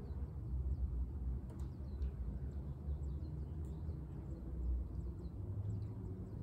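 Outdoor ambience: a steady low rumble with faint, scattered high chirps of birds.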